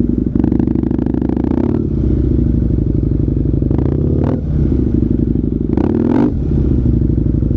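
Motorcycle engine running steadily at low speed in slow traffic, a continuous low thrum. Several brief bursts of rushing noise come over it, about half a second in, around four seconds and around six seconds.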